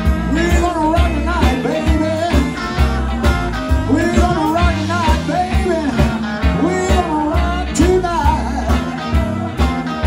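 Live blues band playing: electric guitars, electric bass and drums with a steady beat, and a melodic line that bends up and down in pitch.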